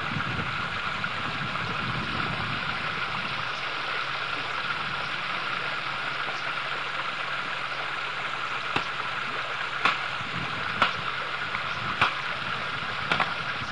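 Steady rush of water at a dam, with several sharp knocks in the last five seconds.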